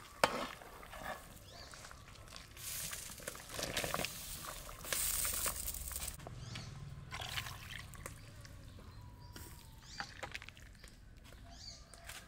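Thick curry boiling in a large aluminium pot, with sloshing and bubbling as a metal ladle stirs it; the ladle clinks against the pot once just after the start, and the sloshing is loudest around three and five seconds in.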